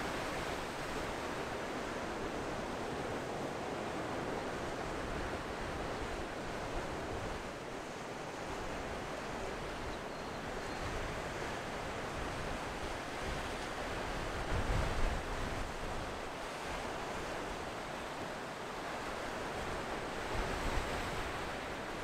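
Ocean surf: waves breaking and washing onto the beach in a continuous roar of noise. Two brief low rumbles stand out, one about two-thirds of the way through and one near the end.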